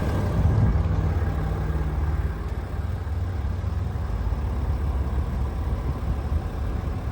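Vehicle engine running at idle, a steady low rumble; a few held low tones over it drop away about two and a half seconds in.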